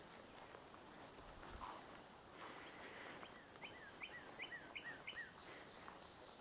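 Faint songbird call from the woods: a quick run of about six whistled notes, each sliding downward, a little over halfway through.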